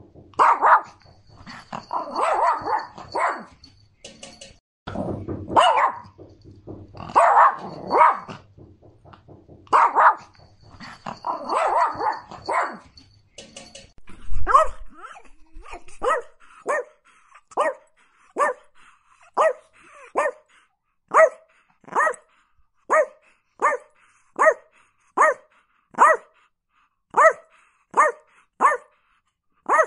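Yorkshire Terrier barking in irregular bursts of several barks. About halfway through, a Chihuahua takes over with short, sharp yaps in a steady run of about one and a half a second.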